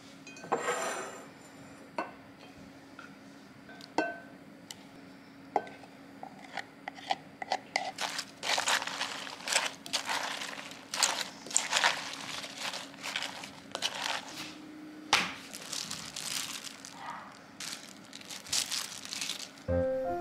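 Crisp romaine lettuce and croutons rustling and crunching as a salad is tossed with wooden utensils in a glass bowl, in quick repeated bursts through the second half. Before that, a few sharp separate clicks of a spoon against a glass jar of dressing.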